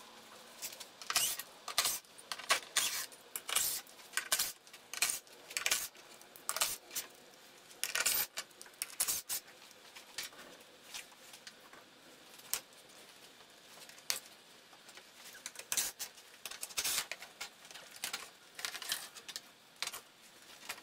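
Irregular sharp clicks, rustles and light rattles of small items being handled, a few a second and uneven.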